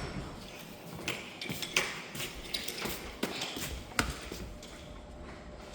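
A few light taps and clicks at irregular intervals, roughly one a second and fading out near the end, over a quiet room hum.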